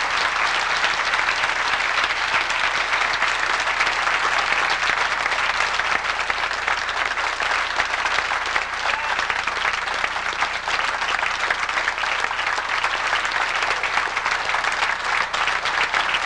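A large indoor audience applauding steadily and at length.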